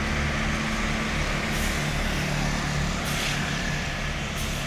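A tour bus's diesel engine running steadily at low revs, with three short hisses of released air from its air brakes.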